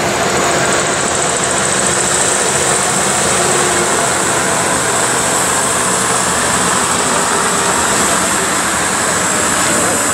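Olympia ice resurfacer running steadily as it drives across the rink resurfacing the ice, with a steady high hiss over the low engine sound.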